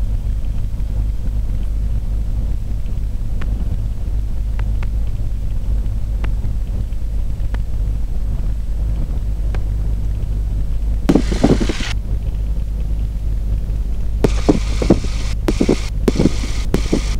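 Beechcraft Bonanza's piston engine idling with the propeller turning slowly, a steady low rumble heard from the cockpit. About 11 s in, and again several times near the end, short bursts of rushing noise break over it.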